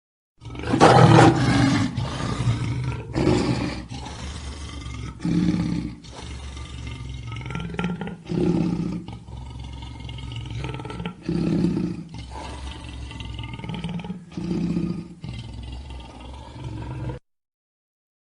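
Lion roaring: one loud roar about half a second in, then a run of shorter roars about every three seconds over a steady low rumble, cutting off suddenly near the end.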